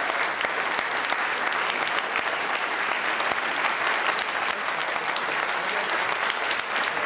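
Concert audience applauding: dense, even clapping that holds steady.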